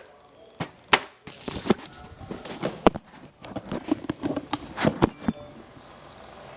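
Irregular sharp clicks and knocks of objects being handled, about a dozen over five seconds, the loudest about a second in, near three seconds and near five seconds, then quiet.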